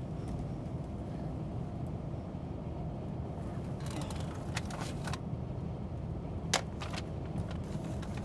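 Steady low rumble of a car's engine and road noise heard from inside the moving car. A few light clicks come about four to five seconds in, and one sharp click about six and a half seconds in.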